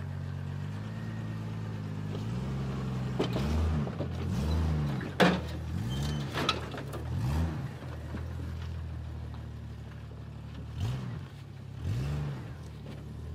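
Modified Jeep Wrangler's engine crawling at low speed, revved in short bursts over and over, the pitch rising and falling six times as it works up over boulders. A single sharp bang about five seconds in is the loudest sound.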